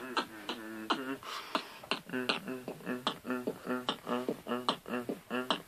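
Mumbled beatboxing: a steady rhythm of mouth-made percussive hits, about three a second, with a hummed pitched tone sounding between the hits.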